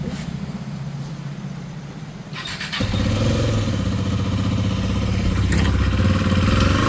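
KTM Duke 250's single-cylinder engine starting a little under three seconds in, then running steadily, as the bike is taken for a test after a new chain and sprocket set.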